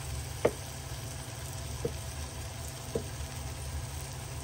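Steel ladle knocking lightly against the mixing bowl three times while thick batter is spooned over skewered potato slices, over a steady low background hum.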